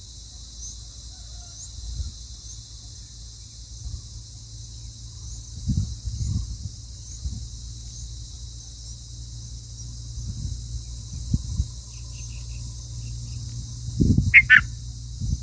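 Steady high-pitched drone of insects, cricket-like, with faint repeating chirps in it. Scattered low thumps are heard, a few short chirps come about three-quarters of the way through, and a brief loud chirp-like call with thumps comes near the end.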